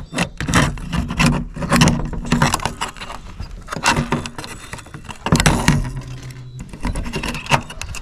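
Repeated sharp clicks, snips and metallic rattles of hand cutters and small parts being handled while pieces are cut off a circuit board for scrap.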